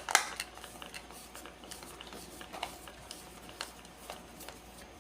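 Scattered light clicks and taps as a screw in an industrial plug is loosened with a screwdriver, the sharpest click right at the start.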